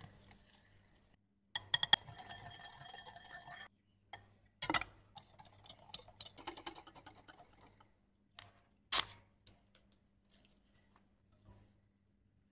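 Wire whisk beating rapidly against a glass bowl, a quick run of clicks with the glass ringing, which stops abruptly. A few separate sharp clinks and knocks of kitchen utensils follow.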